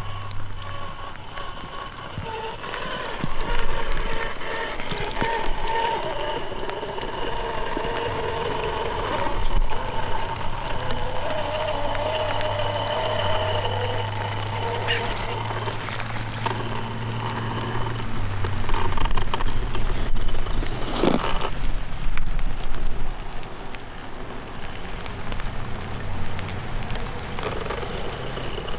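Traxxas TRX-4 Sport RC crawler's brushless motor and geared drivetrain whining as it crawls over wet rock, the whine wavering and coming and going with the throttle. A single sharp knock about two-thirds of the way through.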